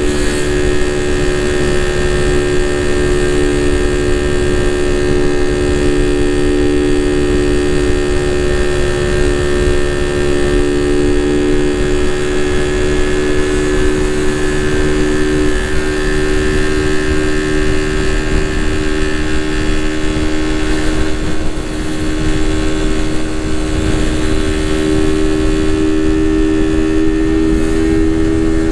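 Suzuki Raider 150 Fi motorcycle's single-cylinder four-stroke engine running at a nearly steady speed under way, with heavy wind and road rumble on the microphone. The engine note eases briefly a little past three-quarters of the way through, then picks up again.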